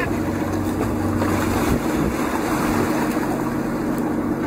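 Boat engine running with a steady low hum under the rush of water along the hull, with wind buffeting the microphone.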